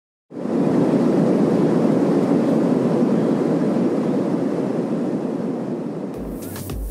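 Steady airliner cabin noise in flight: the even rush of jet engines and airflow, easing slightly over the seconds. Dance music with a thumping beat comes in near the end.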